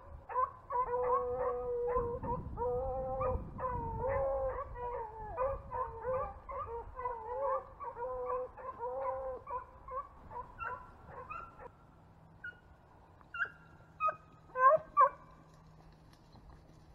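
A pack of rabbit beagles baying on a running rabbit, many overlapping calls at once. About two-thirds of the way through they thin out to a few scattered bawls.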